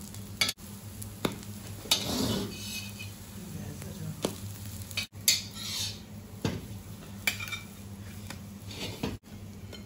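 Metal spatula scraping and clicking against an iron wok as cornmeal pancakes are turned and lifted out, with a light sizzle of frying underneath. The scrapes and taps come irregularly, a few sharp clicks spread through.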